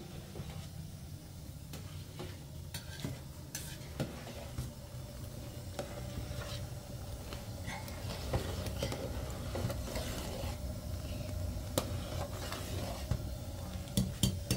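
A metal skimmer spoon stirring a large aluminium pot of boiling rice, with scattered sharp clicks and scrapes of metal on the pot, several close together near the end. Beneath it the gas burner runs with a steady low rumble.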